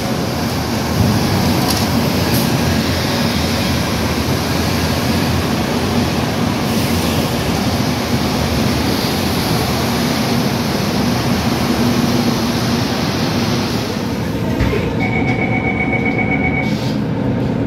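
Steady din of diesel buses running at a covered bus interchange. Near the end it gives way to the inside of a MAN A22 Euro 5 diesel bus, its engine idling, with a rapid high beeping for about two seconds.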